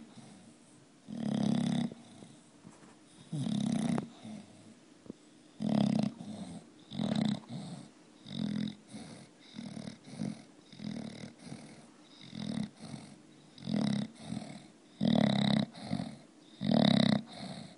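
English bulldog snoring, one snore every second or two, some in quick pairs, the later ones shorter and closer together.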